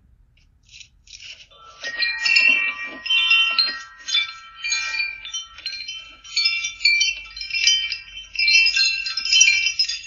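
Wind chimes jangling as they are carried away by hand, swinging into each other in uneven clusters of ringing tones that start about a second and a half in.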